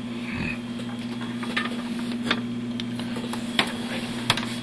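Steady low electrical hum with a few short, sharp clicks and taps scattered through it.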